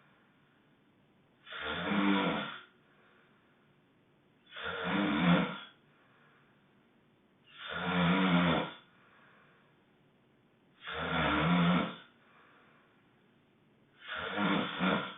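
Loud honking snores from a sleeper, five of them in an even rhythm about three seconds apart, each followed by a fainter breath out.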